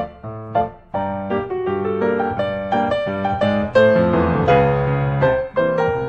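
Background piano music, a steady flow of notes with a brief pause a little under a second in.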